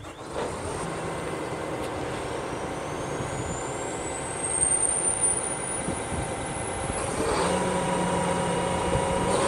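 John Deere S660 STS combine's diesel engine catching just after a start and running steadily, with a high whine that rises slowly in pitch; about seven and a half seconds in, the engine note steps up to a stronger, steadier hum.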